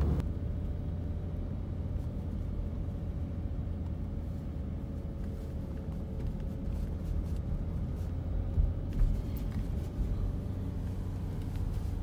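Steady low rumble of engine and road noise inside a moving car's cabin, with a faint steady hum above it. Two short thumps come about two-thirds of the way in.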